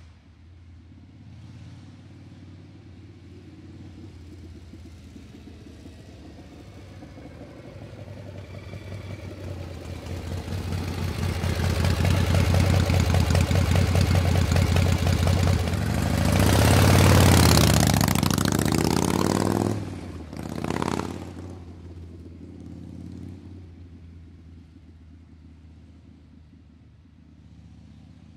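A motor vehicle engine growing steadily louder as it approaches, running loudest for several seconds with its pitch sweeping, then dropping off sharply and fading as it moves away.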